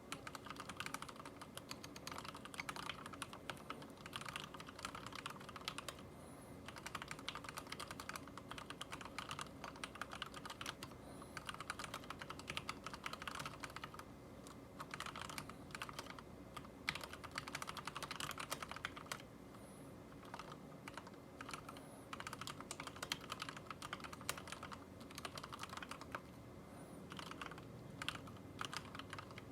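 Ninja87 Arc XD mechanical keyboard with lubed Cherry MX Red linear switches, typed on at a steady pace. Keystrokes come in quick runs with a few brief pauses.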